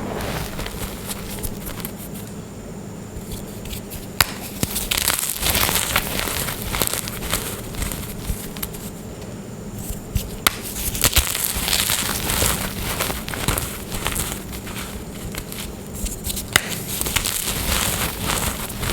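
Glittery gym chalk being crushed and crumbled by hand, a dry crunching and crackling that comes in spells, with a few sharp snaps and short quieter pauses between.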